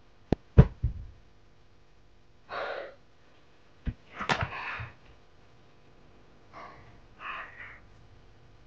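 A woman breathing hard in short gasps and sighs. A few sharp clicks and knocks come about half a second in and again near four seconds, as a mobile phone is lowered and set down.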